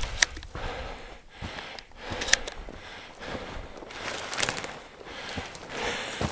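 Footsteps crunching through snow and dry brush, with twigs snapping and branches scraping past, and the walker's breathing. Two sharp snaps stand out, one just after the start and one about two seconds in.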